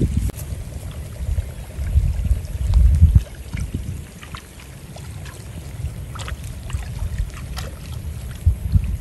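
Wind buffeting the microphone with a gusty low rumble, loudest in the first three seconds and easing after, with light rain falling: scattered faint ticks of drops.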